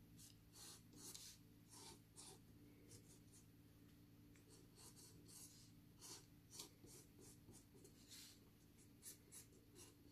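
Tombow marker tip scratching short, irregular strokes on watercolour paper as sketchy lines are drawn, faint and close.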